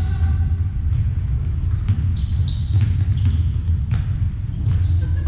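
Basketballs bouncing on the court of an indoor sports hall, several sharp knocks a second apart, with short high sneaker squeaks between them.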